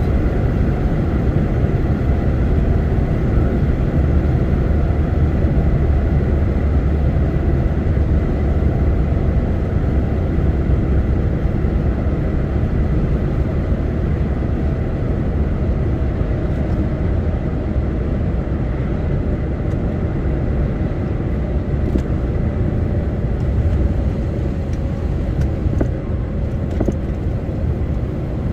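Truck in motion, heard from inside the cab: a steady drone of engine and road noise, strongest in the low rumble, with a faint engine tone that drops slowly in pitch.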